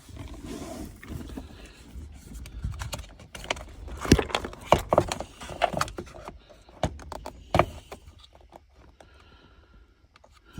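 Sharp clicks and clacks of the shifter's cable ends and clips being worked and pried loose by hand, a run of knocks between about three and a half and eight seconds in, the loudest just after four seconds.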